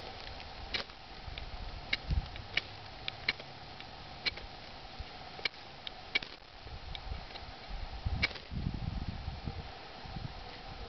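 Light My Fire firesteel scraped with the spine of an RMJ Tactical Shrike tomahawk to throw sparks into fluff tinder: a string of short, sharp scrapes at irregular intervals. Dry twigs and leaves rustle near the end, over a faint steady hum.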